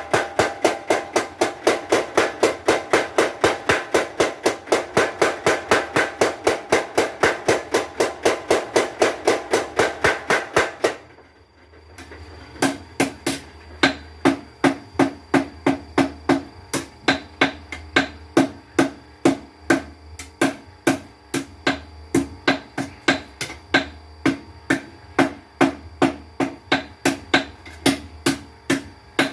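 Mechanical blacksmith's power hammer pounding steel in fast, even strokes, about five or six a second, with a low motor hum beneath. It stops briefly about 11 seconds in, then strikes again at a slower, uneven pace with a lower ring.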